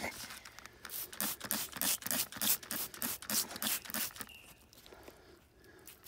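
Hand spray bottle squirted rapidly, spritzing water over a dirty stone blade to rinse it, about three squirts a second; the squirting pauses for a second or two near the end.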